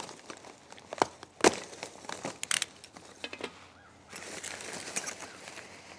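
Foam packing peanuts and a cardboard box rustling and crinkling as hands dig through them, with a few sharp clicks and taps, then a steadier scratchy rustle from about four seconds in.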